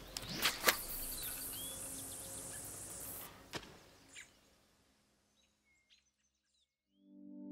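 Outdoor ambience: a steady high hiss with a few short bird chirps and a couple of sharp clicks. It fades out about four and a half seconds in, and music starts to come in at the very end.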